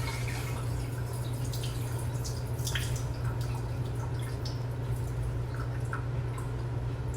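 Water dripping and splashing as rinse water is drained off a bowl of washed rice, with a steady low hum underneath.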